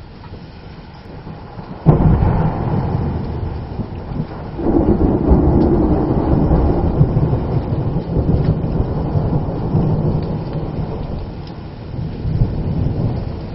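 A thunderclap breaks sharply about two seconds in and rolls into a long, deep rumble that surges again a couple of seconds later, then slowly fades with one more swell near the end. Steady rain hisses underneath.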